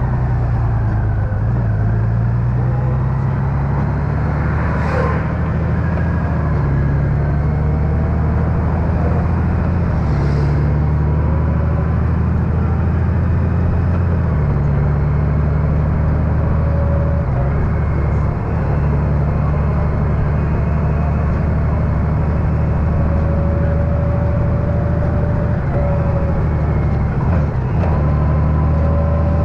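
Honda Gold Wing's flat-six engine running while riding in traffic, its pitch stepping up and down every few seconds, over steady road and wind noise. Two brief sharp sounds cut in about five and ten seconds in.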